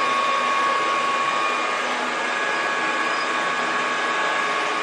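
A small motor running steadily, a constant whine with hiss.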